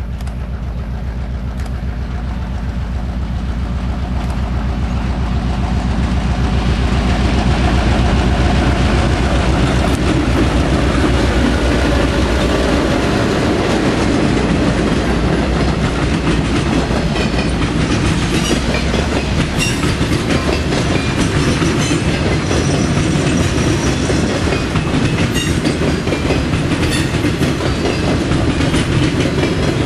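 Freight train passing: the diesel locomotives' engine drone builds to its loudest about eight to twelve seconds in, then gives way to the steady clatter and clicking of a string of gondola cars' wheels rolling over the rail joints.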